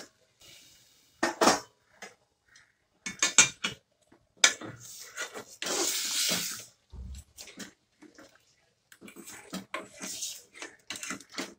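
Steel ladle clinking and scraping against a stainless steel cooking pot while chicken curry is stirred, with a stretch of pouring or splashing water near the middle as more water is added for the gravy.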